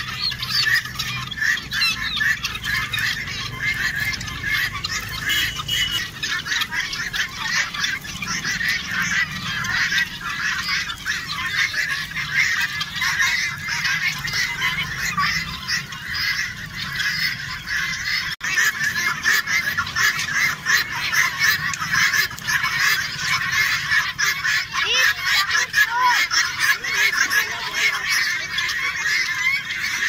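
A large flock of helmeted guineafowl calling all at once: a dense, unbroken chorus of many short, overlapping calls.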